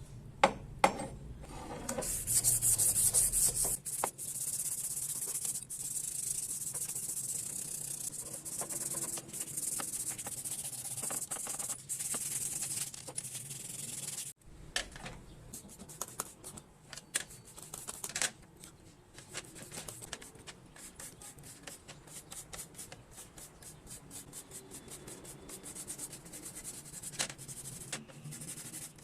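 Sanding or abrasive rubbing on a metal bicycle part, running as a steady hiss for about twelve seconds. It stops abruptly and gives way to lighter, irregular scraping with many small clicks.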